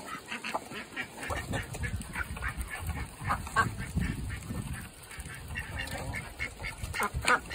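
Several domestic ducks feeding together from a bowl of grain: quick clicks of bills dabbling in the feed, mixed with short, soft quacks. A low rumble runs under it for a few seconds in the middle.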